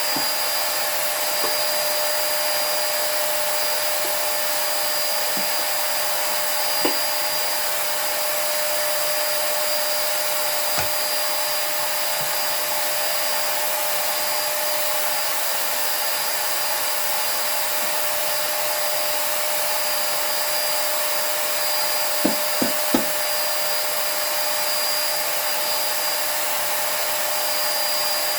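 Bagless vacuum cleaner running steadily, its motor giving a constant whine, while it is pushed over the floor. There are a few light knocks, with a quick run of three near the end.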